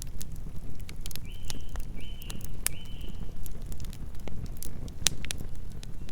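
Campfire burning: irregular sharp crackles and pops from the burning wood over a steady low rumble of the flames. Between about one and three and a half seconds in, three short high-pitched calls from an animal come one after another.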